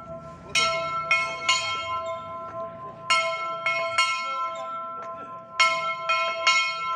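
Weeding-time bell struck in sets of three quick strokes, each set about two and a half seconds apart, with the metal ringing on between strikes, signalling weeding time.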